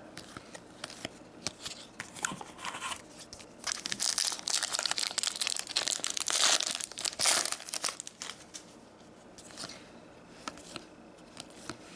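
Hockey trading cards being flicked and slid against each other by hand while a pack is sorted: a run of small clicks and snaps, with a denser stretch of crinkling and rustling from about four to seven and a half seconds in.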